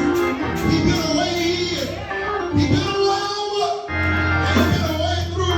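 Gospel music: voices singing over instruments with a held bass line and a steady beat. The bass drops out briefly and comes back stronger about four seconds in.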